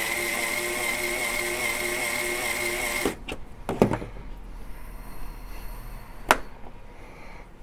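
Drill driver spinning the cutter shaft of a Hornady case trimmer, with an RCBS three-way cutter trimming, chamfering and deburring a brass case; a steady motor whine with a slightly wavering pitch that cuts off suddenly about three seconds in. A few sharp clicks and knocks follow as the drill is taken off and the trimmer is handled, the loudest about a second after the motor stops.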